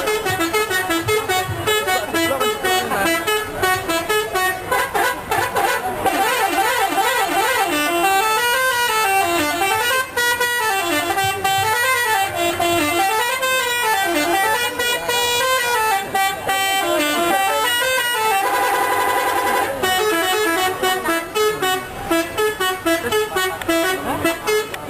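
Telolet bus horns, the multi-tone musical horns of Indonesian buses, playing tunes: quick changing notes, then a wailing melody that rises and falls over and over, and a single chord held for about a second and a half near the three-quarter mark.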